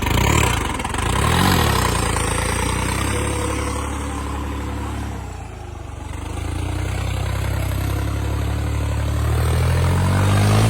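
Tractor diesel engine working hard under load as the tractor churns its way out of deep mud, its revs shifting and climbing toward the end.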